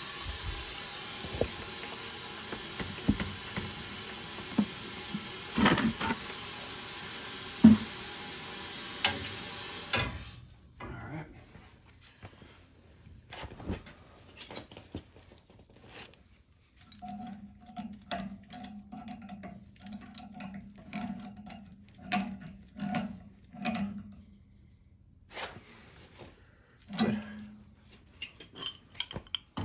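Water rushing out through a steam boiler's flush valve, a steady hiss with a few clanks, cut off sharply about ten seconds in. Then scattered clinks and knocks of metal fittings and tools, with a run of short squeaky pulses midway.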